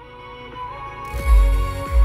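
Music with a heavy bass beat playing through the car's upgraded stereo, with DSP amplifier, new tweeters and midranges, and an 11-inch spare-wheel subwoofer. About a second in it gets louder, and deep bass pulses and crisp treble come in.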